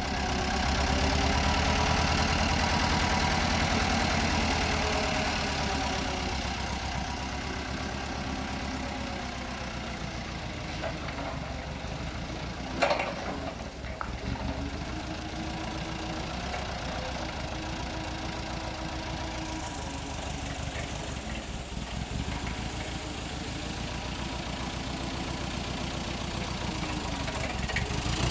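An engine running steadily on a piece of material-handling machinery, its speed drifting gently up and down. There is a sharp metallic clank about halfway through, and a smaller knock just after it.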